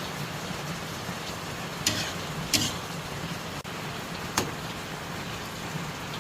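Steady sizzling of food frying in a pan, with three sharp clinks of a utensil against the pan, the loudest about two and a half seconds in.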